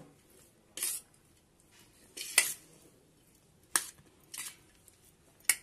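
A metal spoon clinks and scrapes against a stainless steel bowl while tossing spiced boiled potato pieces. There are about half a dozen short, separate knocks with quiet gaps between them.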